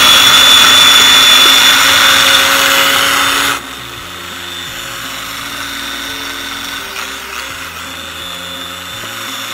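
Small electric food chopper running with a steady high whine, cutting off suddenly after about three and a half seconds. Soft background music follows.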